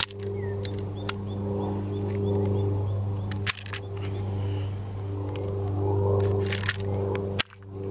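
Two sharp shots from a Type 14 Nambu pistol firing 8mm Nambu, about three and a half and seven and a half seconds in, with lighter metallic clicks between them. A steady low hum runs underneath, and small birds chirp in the first seconds.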